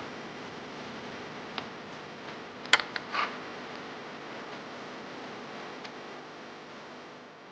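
A few sharp clicks and taps over a steady hiss: a single click, then a louder cluster about three seconds in. The sound cuts out at the very end.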